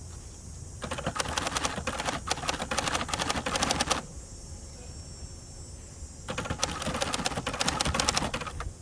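1967 Hermes 3000 manual typewriter being typed on in two quick runs of keystrokes, each about three seconds long, with a pause of about two seconds between them. A steady low rumble runs underneath.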